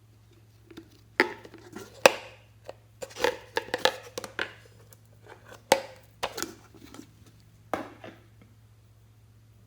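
Slime being handled, giving an irregular run of sharp clicks, pops and crackles, with the loudest snaps about a second in, two seconds in and near the middle.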